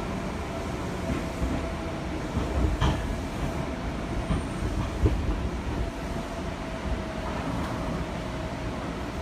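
Seibu Tamagawa Line train heard from on board while running: a steady rumble of wheels on rail with a faint steady hum, and a sharp knock about three seconds in.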